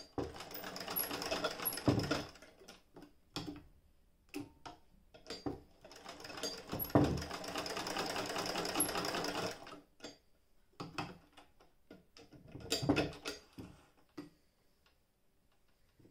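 A Jones Model D-68 hand-crank sewing machine stitching, its needle mechanism ticking rapidly as the handwheel is cranked. It runs in three stretches of stitching with short pauses and scattered clicks between them, and goes quiet near the end.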